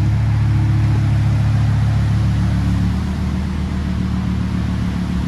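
A car engine running steadily with a low hum, its pitch shifting to a new steady note about three seconds in.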